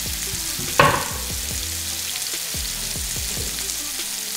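Fish fillets sizzling steadily as they pan-fry in hot oil in a nonstick pan, with a brief louder burst of sizzle about a second in.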